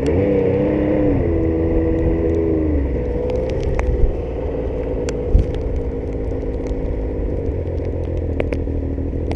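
Yamaha Vector snowmobile's four-stroke engine running under way at an easy pace. Its pitch wavers and dips over the first few seconds, then holds steady, with a few sharp clicks over the top.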